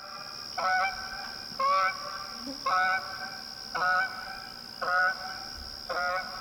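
Goose honking: six short calls about a second apart, with a steady high-pitched whine underneath.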